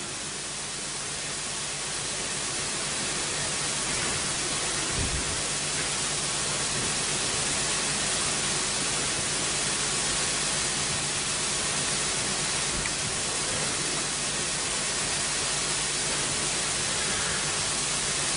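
Steady, even hiss with no voices, growing a little louder over the first few seconds, with one soft low thump about five seconds in.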